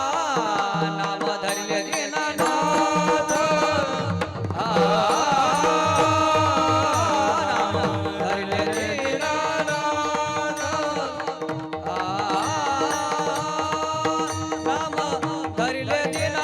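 Marathi Warkari kirtan tune: mridang drumming keeps a steady rhythm under a melody with sliding, ornamented pitch bends and a held low drone.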